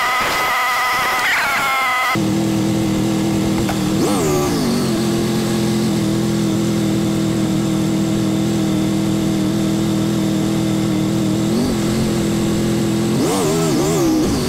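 Motorcycle engine running: a higher engine note that dips and rises for the first two seconds, then, after an abrupt change, a steady low running note with a few brief throttle blips.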